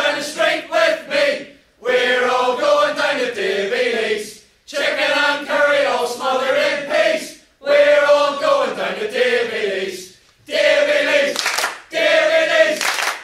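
A group of voices singing a chant in repeated phrases of two to three seconds, with short breaks between them.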